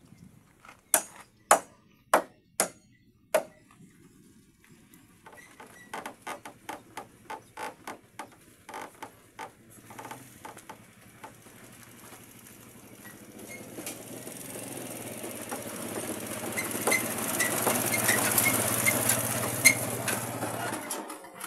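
Hammer blows on timber: five loud strikes a second or less apart, then a run of lighter, quicker taps. From about halfway a motor's hum and hiss builds, loudest near the end.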